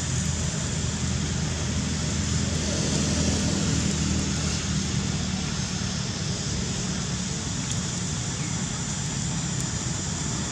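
Steady background noise: a low hum under an even hiss, with no distinct event standing out.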